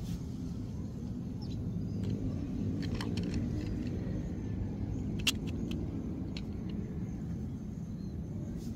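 Steady low outdoor rumble, with a few light plastic clicks from a hand handling an action figure and its clear stand, the sharpest about five seconds in.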